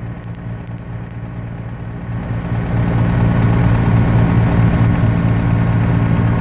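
Massey Ferguson MF65 tractor's Continental G176 gasoline engine idling steadily, getting louder about two and a half seconds in without changing pitch. It is a worn engine due for a rebuild, smoking heavily and bubbling oil out of the exhaust.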